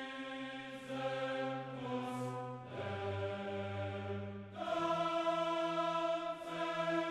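Background music of slow, sustained chords that change every second or two.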